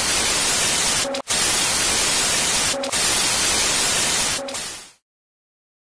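Television-style static hiss used as a glitch sound effect for a logo intro. It is broken three times, about a second and a half apart, by a brief glitch dropout carrying a short tone, and fades out quickly about five seconds in.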